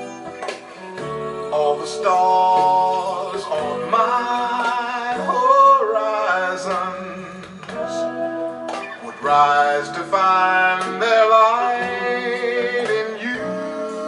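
A song with a singing voice over guitar, played back through DeVore Fidelity Gibbon The Nine floor-standing loudspeakers driven by a 2A3 valve amplifier.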